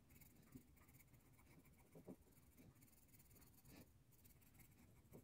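Faint scratching of a coloured pencil on paper, in short irregular shading strokes.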